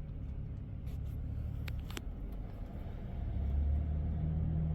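Low engine rumble of a motor vehicle, growing louder about three seconds in and settling into a steady hum, with a couple of light clicks near the middle.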